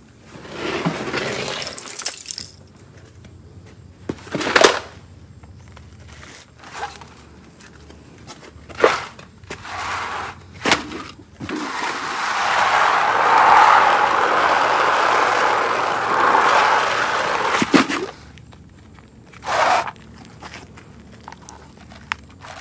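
Hand work on a fitted part, prying and handling it to get it out: a scattering of sharp knocks and clicks, with a rushing noise lasting about six seconds midway.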